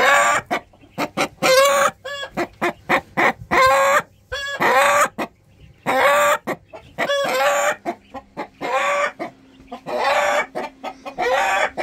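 Chickens in the coop calling: a run of short clucks and cackles, one after another, with a few sharp clicks between them.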